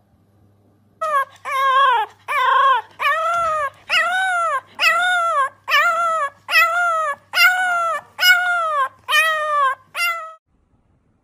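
French bulldog puppy calling out in about a dozen drawn-out cries in a row, each rising then falling in pitch.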